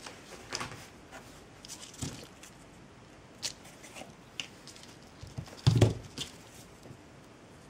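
Quiet handling sounds of hand crafting with jute twine: scattered small clicks and rustles, with one louder knock about six seconds in.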